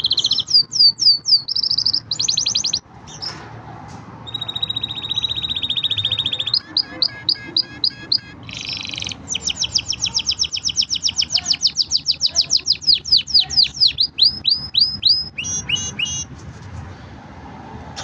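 Green (variegated) domestic canary singing: a fast trill about four seconds in, then a long run of quick, high repeated sweeping notes. The song stops about two seconds before the end.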